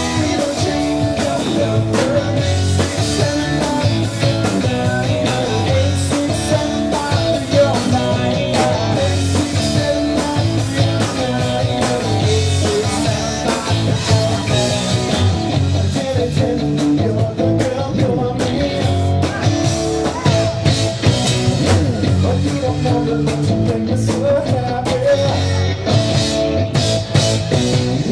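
Live rock band playing: electric guitar, bass guitar and drum kit, with a male singer.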